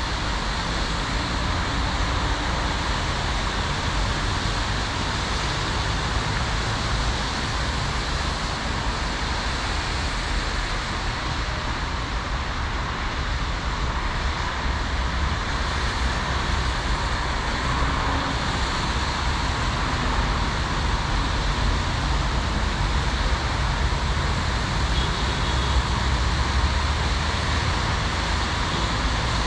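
Steady road traffic noise of cars driving along a multi-lane road, a continuous wash of tyre and engine sound.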